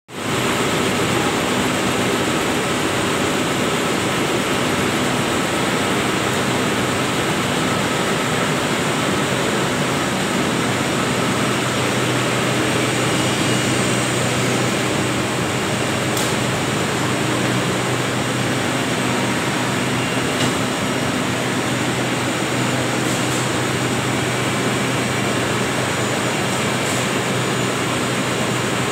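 Steady, dense running noise of cotton spinning-mill machinery, textile preparation machines such as combers and a lap former running together, with a constant low hum and a few faint ticks.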